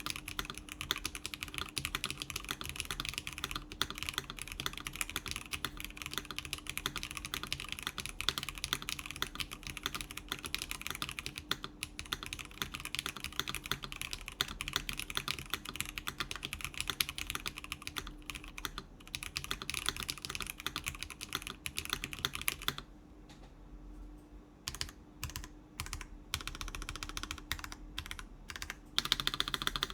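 Steady fast typing on a mechanical keyboard with lubed, clicky NK Classic Blue switches under GMK keycaps, in a polycarbonate-plate tenkeyless case with a silicone insert and case foam. About three-quarters of the way through the typing pauses briefly, with a few single keystrokes, then picks up again.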